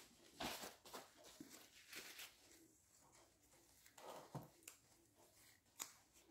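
Near silence: room tone with a few faint, brief rustles and taps from gloved hands working over a glass baking dish.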